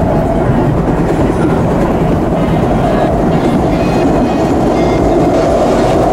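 PATH train in motion, heard from inside the car: a steady rumble of wheels on rail and car body noise. A faint high whine joins about halfway through.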